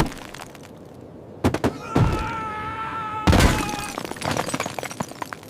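Collapse sound effects: a run of thuds and crashes, with the loudest crash about three seconds in.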